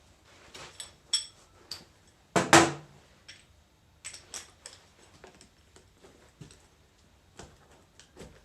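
Metal tools and parts clicking, clinking and knocking while a hydraulic directional control valve is being taken apart, with a louder double knock about two and a half seconds in.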